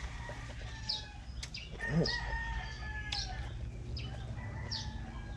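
A rooster crowing twice, long drawn-out calls about two and four seconds in, with a small bird's short high chirps about once a second.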